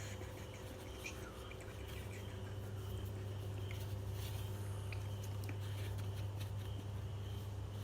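Frogs and toads calling: a faint steady high trill with scattered short chirps and clicks, over a steady low hum.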